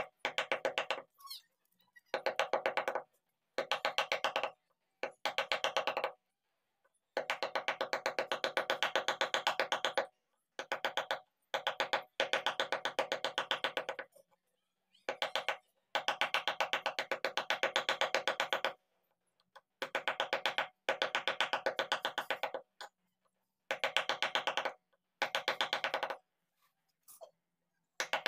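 Wooden mallet tapping a wood-carving chisel into a timber panel: fast, even runs of knocks in bursts of a second or two, each stopping abruptly.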